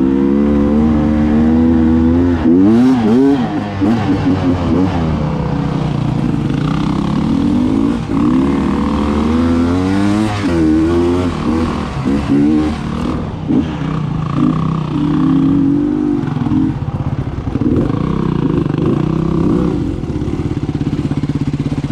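2019 Beta 300RR Race Edition's two-stroke single-cylinder engine under way on a dirt bike, revving up and down with the throttle, its pitch rising and falling again and again.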